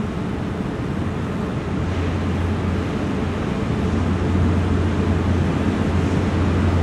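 A train approaching along the platform track, its steady low rumble growing gradually louder.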